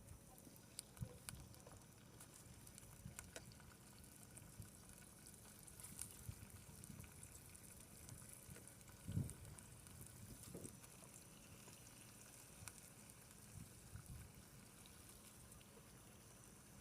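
Squid cooking over heat: a faint, steady sizzle with scattered small crackles, and a single low thump about nine seconds in.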